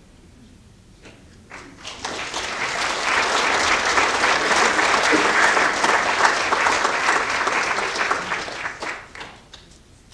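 Theatre audience applauding. A few scattered claps about a second in build quickly into full applause, which thins out and stops near the end.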